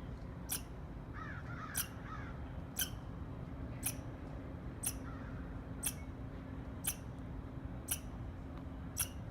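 Squirrel chirping, a sharp high-pitched call repeated evenly about once a second. A brief warbling twitter sounds about a second in, and a faint steady low hum runs underneath.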